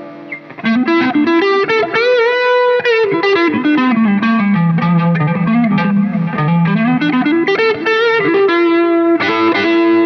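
Samick LS 11 Stratocaster-style electric guitar playing a single-note lead line: after a brief quiet moment, the melody starts under a second in, falls to low notes, climbs back up and ends on held notes, with vibrato on the early high notes.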